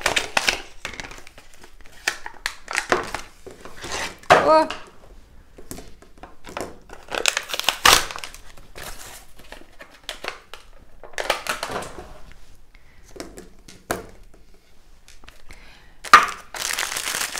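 Plastic packaging being torn open and crumpled by hand: irregular crinkling and tearing, with a louder burst of crinkling near the end.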